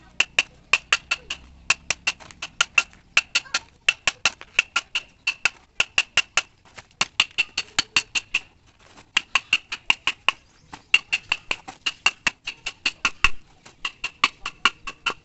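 Bamboo sticks of a stool frame tapped in quick succession with a flat piece held in the hand: sharp, lightly ringing clicks, about five a second, in runs broken by short pauses.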